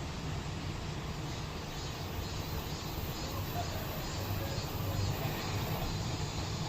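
Cicada calling in a steady pulsing series, about two to three pulses a second, over a continuous low rumble.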